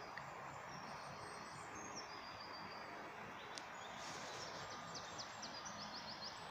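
Songbirds singing over a steady outdoor background hiss: thin, high whistled phrases early on, then one bird gives a quick run of about ten short, high notes in the second half.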